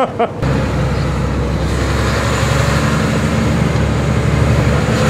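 Tipper truck engine and road noise heard from inside the cab while driving, a steady drone that starts suddenly just under half a second in.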